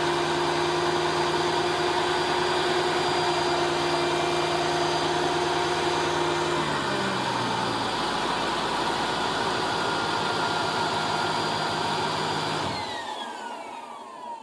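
2002 Mercedes-Benz CL500's 5.0 M113 V8 idling after an oil change, run briefly to build oil pressure; about seven seconds in its note drops to a lower idle. Near the end it is switched off and a high whine falls away as it spins down.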